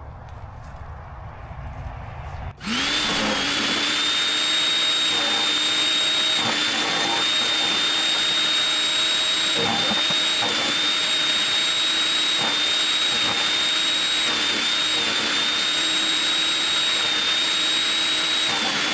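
Portland electric wood chipper switched on about two and a half seconds in. Its motor comes up to speed quickly, then runs steadily with a high whine, with faint knocks now and then.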